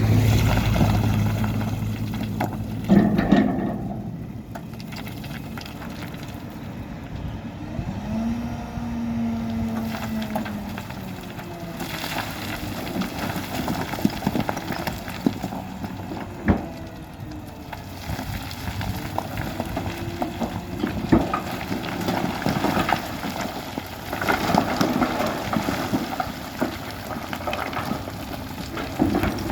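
Heavy diesel earthmoving machine working. Its engine hums steadily at first, then its pitch rises and falls a few times as it takes load. Sharp metal clanks come now and then, the loudest about three seconds in.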